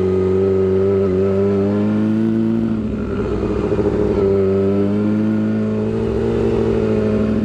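Yamaha R6's inline-four engine running through a short aftermarket exhaust while riding at a steady pace. Its pitch dips slightly about three seconds in, climbs again, then eases down near the end.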